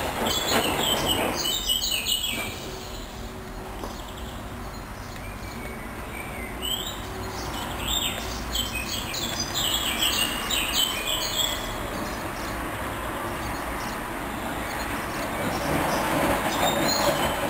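Hoover washing machine drum turning with a duvet inside during the wash, with clusters of short high squeaks over a steady running noise.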